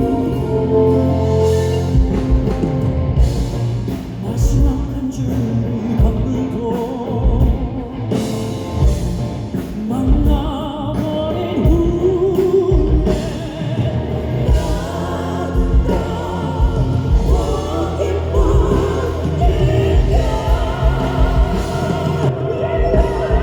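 A male crossover vocal quartet singing live in a rock-opera style over a full band with heavy drum hits, recorded loud from the concert audience.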